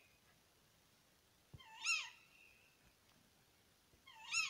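Female tawny owl giving two sharp contact calls (the 'kewick' call) about two and a half seconds apart, each rising then falling in pitch.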